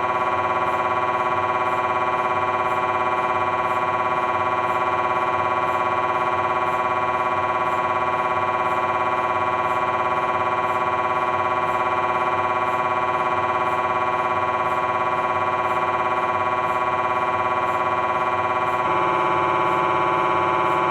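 Philips 1.5 T MRI scanner's gradient coils running a T1-weighted coronal sequence of the lower spine. It makes a loud, steady electronic buzzing tone with a faint, regular low pulse underneath, and the tone shifts slightly near the end.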